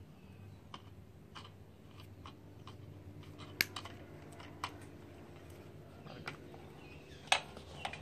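Wire cutters snipping through ballast wires: two sharp snaps, one about three and a half seconds in and a louder one near the end, with a few light clicks of the tool being handled between them.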